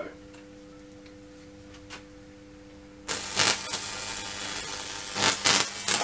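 A microwave oven transformer hums steadily under load. About three seconds in, its roughly 2000-volt output strikes an arc across the grid of an electric fly-swatter racket, and a loud, harsh crackling buzz sets in, with a few sharper cracks near the end.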